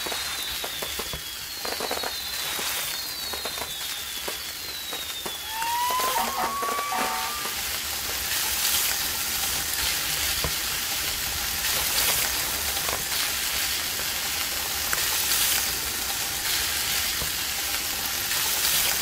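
Food sizzling on a hot barbecue grill, a steady crackling hiss that gets louder about six seconds in. A few short falling chirps sound over it in the first five seconds.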